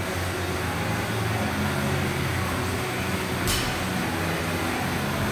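A loaded barbell's plates clinking once, sharply, about three and a half seconds in during a ground-to-overhead rep, over a steady low hum.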